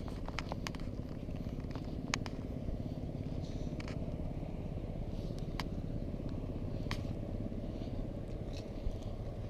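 Steady low outdoor rumble with a few light clicks scattered through it.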